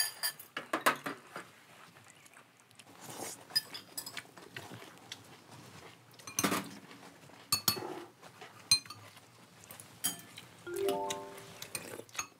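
Spoons and chopsticks clinking against ceramic bowls in scattered light clicks while people eat, over background music. A short held pitched tone comes near the end.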